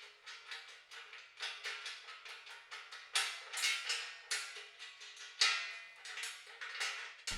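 Ratchet wrench and socket clicking in quick runs of ticks as bolts on the sawmill bunks and rails are tightened, with a few louder metallic clicks.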